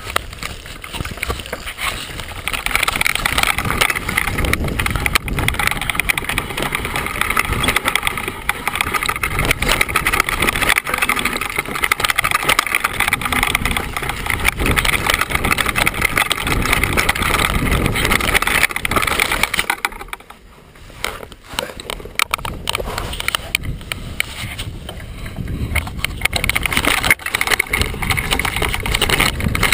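Downhill mountain bike riding over dirt and rock, picked up by a GoPro on the rider: a dense, continuous clatter and rumble of the tyres and the jolting bike. It eases off briefly about two-thirds of the way through, then picks up again.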